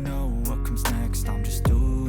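Hip-hop backing music: held chords over deep bass kicks that drop in pitch, one at the start and another near the end.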